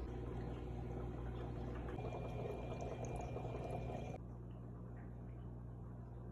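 Water moving in an aquarium, an even wash of liquid noise over a steady low hum. The sound changes abruptly about two seconds in and again about four seconds in.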